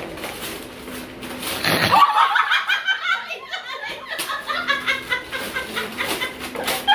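Wrapping paper rustling as it is torn open, then from about two seconds in a woman laughing hard in a quick run of short bursts.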